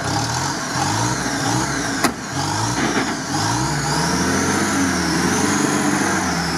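UAZ-469 engine, just restarted after a deep river ford, revving in short blips and then held at rising revs as the wet jeep pulls up the bank. A single sharp click comes about two seconds in.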